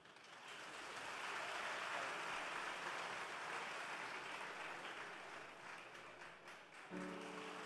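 Audience applauding as the choir's song ends, swelling over the first second and holding steady. A held pitched tone comes in under the clapping near the end.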